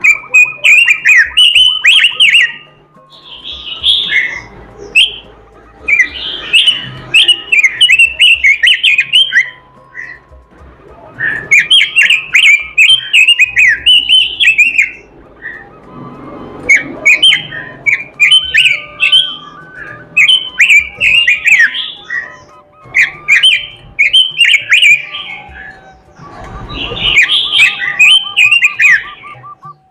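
Pekin robin (red-billed leiothrix) in full, prolific song: loud, fast warbling phrases of two or three seconds, repeated with short pauses between them.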